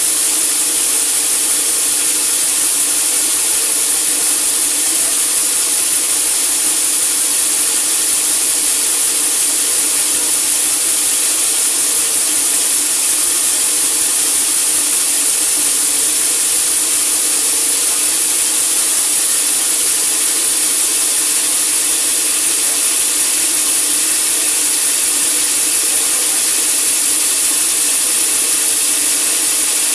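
Sawmill saw cutting lengthwise through a large teak log, a steady loud high hiss with a faint steady hum beneath it, unchanging throughout.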